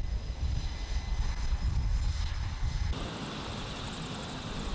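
Aircraft engine noise on an aircraft carrier's flight deck: a gusty low rumble, then about three seconds in an abrupt change to a steadier, high hissing whine.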